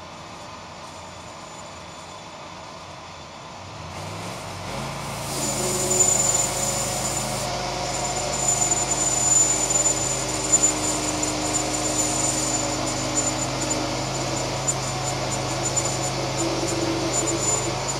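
A DIY bandsaw mill's engine speeds up from a low idle about four seconds in, rising in pitch, then runs steadily at high revs driving the band blade, with a thin high whine and some rattling.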